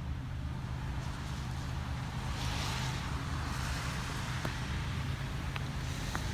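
Car engine running steadily with a low hum. There is a brief hiss about two and a half seconds in and a few light clicks near the end.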